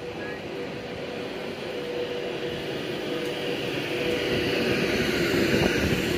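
Class 390 Pendolino electric train pulling out along the platform and gathering speed: a steady electric whine over wheel and rail noise that grows steadily louder.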